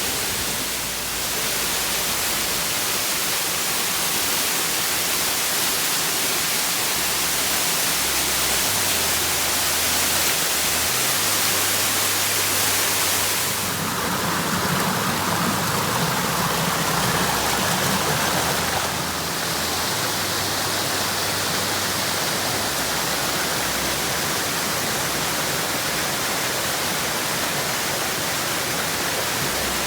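Steady noise of a tall waterfall's falling water. Its tone shifts abruptly twice, about 13 and 19 seconds in.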